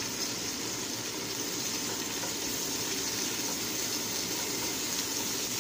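Moringa leaves and tomatoes sizzling steadily in oil in a frying pan as a spatula stirs them.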